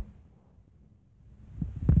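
Dull low thumps from a person walking on concrete pavement: one at the start, then a quiet spell of about a second, then two more near the end.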